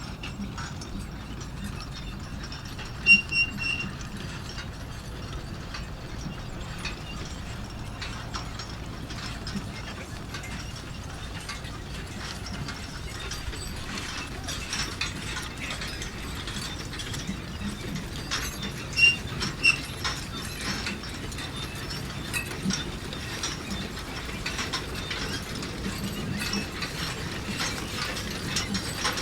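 Manure spreader running, its mechanism rattling and ratcheting in a continuous clatter, with a couple of louder squeaks a few seconds in and again past the middle.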